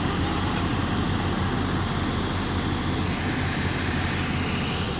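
Heavy diesel engine of a construction machine running steadily, with no change in speed.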